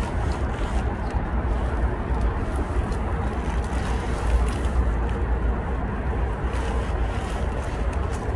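Steady outdoor background noise: a low, fluctuating rumble with a hiss over it, with no distinct events.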